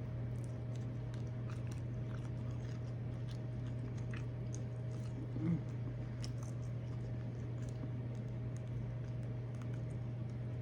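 Close-up chewing of shrimp with scattered small wet mouth clicks and smacks, over a steady low hum. A brief low vocal sound comes about halfway through.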